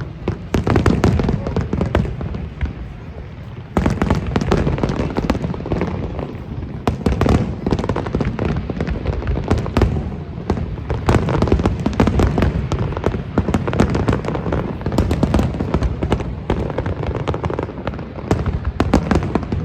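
Fireworks display: a dense, continuous run of bangs and crackles, easing for about a second some three seconds in, then thick again.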